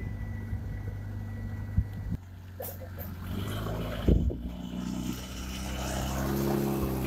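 Steady low engine hum of a Bofors FH-77B howitzer's auxiliary power unit, with a single clank about four seconds in. The engine note climbs near the end.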